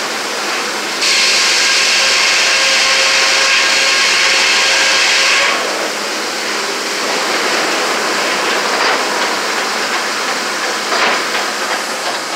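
Sawmill head saw cutting through a log: a loud, high, steady whine starts about a second in and stops after roughly four and a half seconds. Around it runs steady mill machinery hiss and rattle, with a few sharp knocks near the end.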